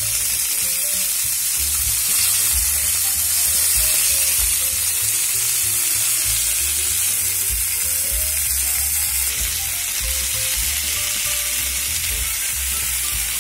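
Flour-dusted chicken thighs sizzling steadily in hot oil in a nonstick frying pan as they are turned over with chopsticks, the skin side browned golden.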